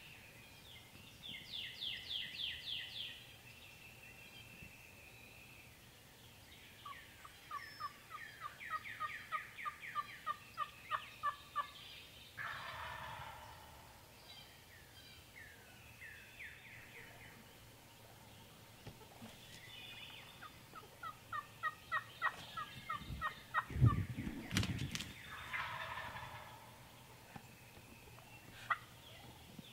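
Wild turkeys calling: runs of evenly spaced yelps, and twice a falling, rattling gobble. A low thump sounds about two-thirds of the way through.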